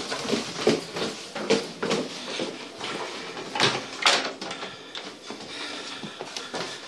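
Footsteps going down steep wooden stairs on a boat, with irregular knocks and bumps, the loudest two a little past halfway, in a small cabin.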